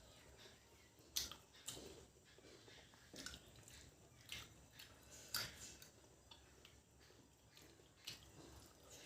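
Faint eating sounds of mutton curry and rice: scattered wet smacks and clicks of chewing, the loudest about a second in and again about five seconds in.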